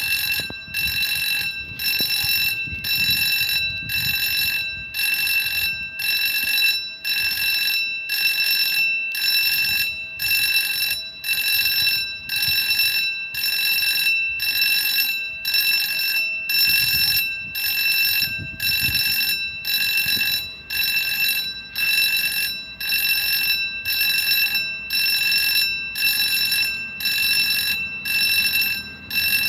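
Railway level-crossing warning bell ringing in even, repeated strokes, about one a second, each a bright ringing tone with several pitches: the crossing's alarm warning that a train is coming.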